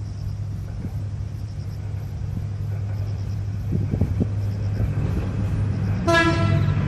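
Kominato Railway KiHa 200-series diesel railcar approaching: a steady low engine rumble grows slowly louder, and about six seconds in it sounds one short horn blast.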